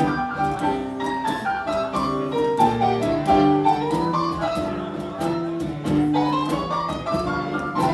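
Music: a melody of held notes over a steady pulse.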